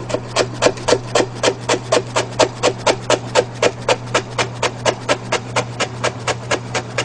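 Kitchen knife rapidly chopping rolled perilla leaves into thin shreds on a plastic cutting board: an even run of knocks, about five a second, over a low steady hum.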